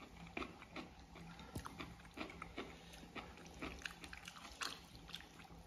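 Close-up eating of wide flat noodles: wet chewing and slurping, with a string of irregular lip smacks.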